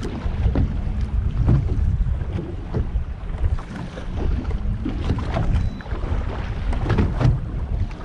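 Wind buffeting the microphone, a steady low rumble, with small waves slapping irregularly against the hull of a drifting boat on open water.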